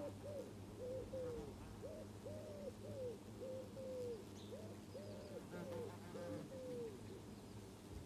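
A pigeon cooing: three phrases of about five low coos each, the last one ending near the end. Under it, honeybees hum steadily at the hive entrance.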